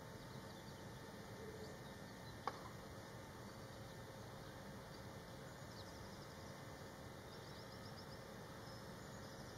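Faint background ambience: a steady low hiss with one sharp click about two and a half seconds in. From a little past halfway there are short runs of faint, rapid, high-pitched trills.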